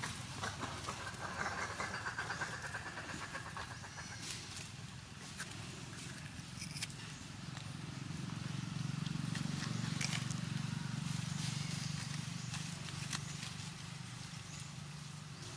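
A motor engine's low hum swelling and fading as it passes, with scattered light clicks and taps.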